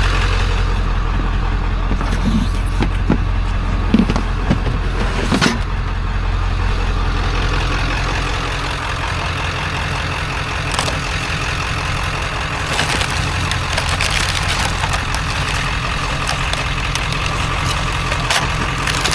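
A vehicle engine idling steadily with a low rumble, with a few scattered knocks and clinks over it.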